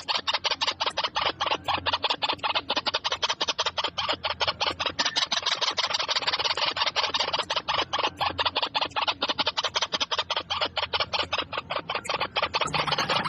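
Birds chirping in a fast, unbroken run of short calls, several a second.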